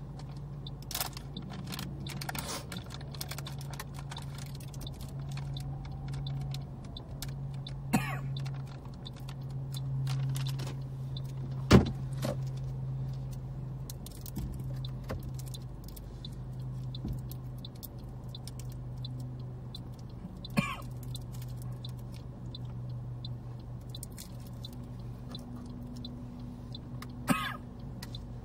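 Car engine heard from inside the cabin, running steadily at low speed while the automatic car slowly reverses into a parallel park, with four sharp clicks, the loudest about twelve seconds in.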